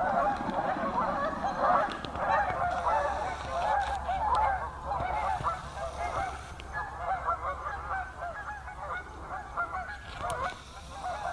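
A large flock of Canada geese honking, many short calls overlapping at once, thinning slightly in the second half.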